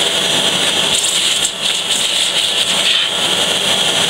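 Vacuum cleaner running steadily, sucking dust out of a laptop's cooling vent; the sound dips briefly about a second and a half in.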